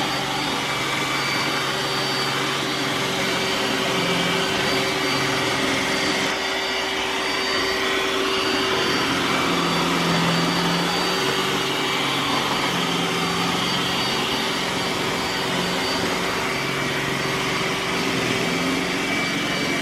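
iRobot Roomba s9+ robot vacuum running while it cleans, a steady whir with a constant hum running through it.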